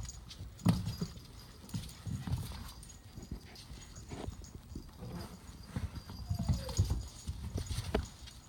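Puppies' paws scrabbling and thumping on a hardwood floor as they romp and tumble, in irregular runs of taps and thuds, with the loudest thump just under a second in. Faint light jingling from a small collar bell.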